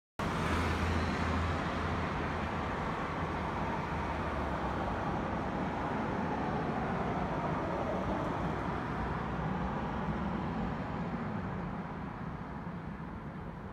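Steady city traffic noise, an even wash of road traffic, cutting in suddenly at the start and easing slightly near the end.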